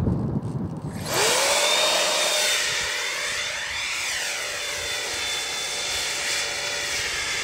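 Electric ducted fan in a Zagi flying wing spooling up about a second in, its whine rising quickly in pitch to full throttle for a hand launch. It then holds a steady high whine with a rushing hiss as the wing flies low past and climbs away.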